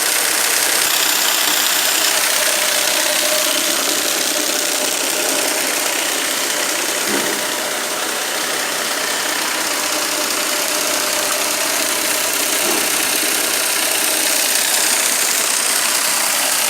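Electric motor of a homemade plywood model combine harvester running steadily, driving the model's moving parts with a loud, even mechanical whir. It dips slightly about seven to eight seconds in.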